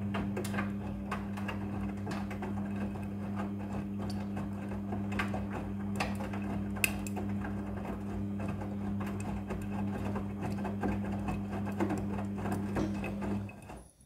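Midea front-loading washing machine tumbling a wet load of clothes in the wash cycle: a steady motor hum with frequent small knocks and splashes as the clothes drop and slosh in the drum. The hum cuts off abruptly near the end.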